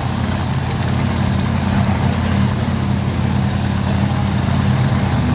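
Drag-racing car engine idling steadily at a low pitch.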